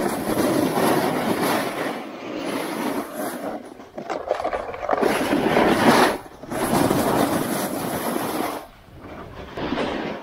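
Edges scraping and sliding across hard, poorly groomed snow on a ski descent. The sound is a loud noisy hiss that swells with each turn about every two seconds.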